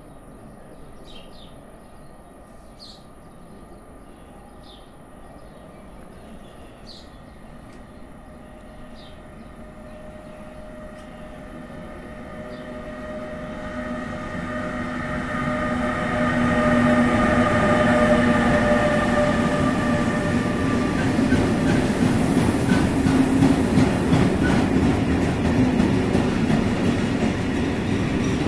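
An electric locomotive hauling a container freight train approaches and passes close by. Its steady whine grows louder over about ten seconds, then gives way to the rhythmic clickety-clack of the container wagons' wheels rolling past.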